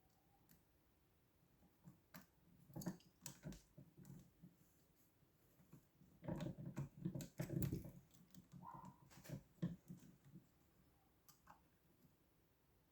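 Faint clicks and short scrapes of lock picks and a tension tool working in a lock, in scattered bursts that are busiest in the middle.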